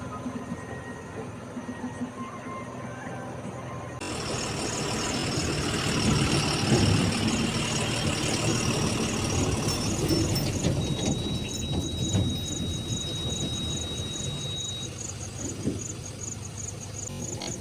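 Diesel engine of a JCB 3DX backhoe loader running as it works, with a steady high squeal lasting about four seconds midway. A rapid, even high-pitched chirping runs behind it from about six seconds in.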